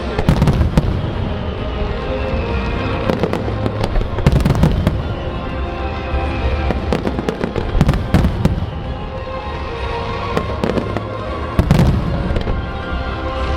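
Aerial display fireworks bursting in a starmine barrage, with sharp reports about every four seconds and a dense crackle between them. Music plays over loudspeakers throughout.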